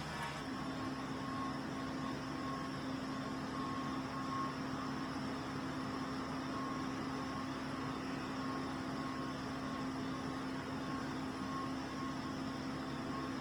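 Steady mechanical hum with a faint high beep pulsing on and off throughout.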